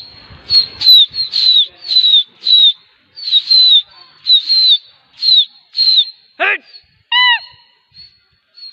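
A pigeon keeper whistling loudly in quick repeated short, sharp high whistles, each dipping at its end, to call the flying pigeons home. Near the end comes one long whistle sliding down in pitch, then a last short whistle.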